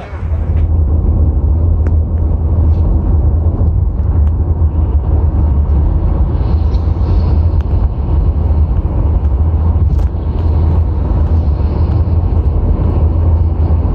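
Steady, loud low rumble of a vehicle travelling at highway speed, heard from inside the moving vehicle.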